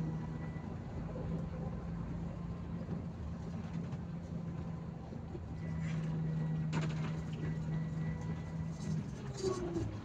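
Provincial bus heard from the driver's seat: its engine drones with road noise, the engine hum easing off for a few seconds and then coming back stronger.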